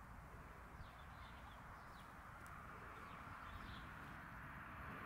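Faint outdoor garden ambience: a steady hiss and low rumble, slowly growing louder near the end, with a few faint short bird chirps now and then.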